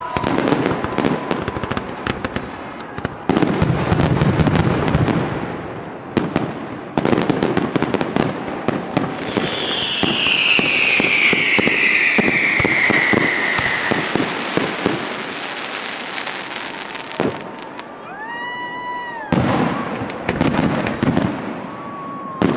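Fireworks going off: repeated bangs and dense crackling in loud waves. A long falling whistle comes about ten seconds in.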